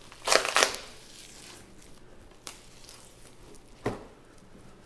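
Beef flank being torn and cut away from a hanging hind quarter with a knife: a short burst of tearing fat and tissue about half a second in, then quieter rustling with two sharp clicks.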